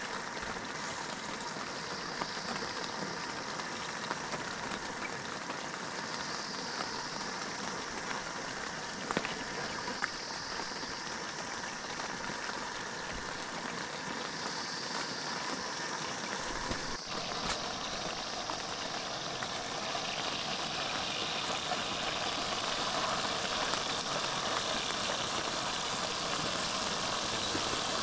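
Steady rain falling as a continuous even patter, a little louder in the last third.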